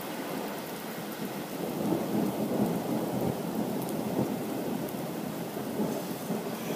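Rain falling, with a low rolling rumble of thunder that swells and fades gently.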